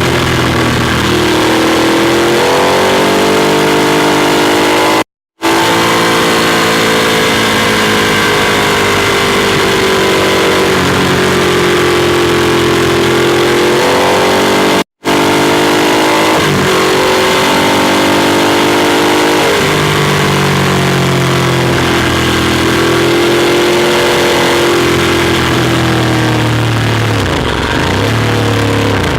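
Ducati Monster 821's Testastretta V-twin engine heard on board while riding, its revs rising and falling repeatedly, over a steady rush of wind noise. The sound cuts out for a moment twice, about five and fifteen seconds in, and the revs drop low near the end.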